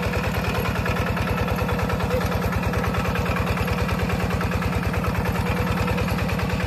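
An engine running steadily with a rapid, even chug that does not change in speed.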